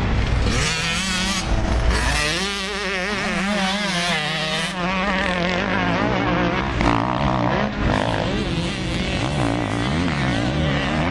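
Motocross dirt bike engines revving hard, their pitch rising and falling quickly with the throttle, more than one bike heard at once.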